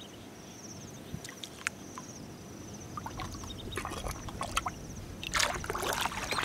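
Shallow seawater sloshing and splashing around rubber boots and a hand groping in the seabed, with a few small sharp clicks. The splashing grows louder about five seconds in as a boot steps through the water.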